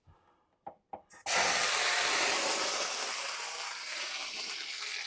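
Water dropped into a hot stainless steel pan: a few light taps, then a sudden loud sizzle and hiss of steam about a second in that slowly dies away. This is a water test of the pan's heat, and the pan is close to searing temperature.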